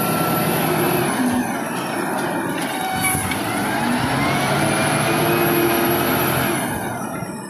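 Diesel engine of a LiuGong 848H wheel loader running under load as it carries and lifts a full bucket of gravel, with a whine rising in pitch in the middle as the boom goes up.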